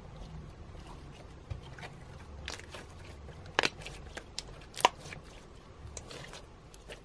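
Clear slime mixed with beads, glitter and sequins being squeezed and kneaded by hand, giving sticky squelches and scattered little clicks and pops. Two sharper pops stand out about a second apart, midway.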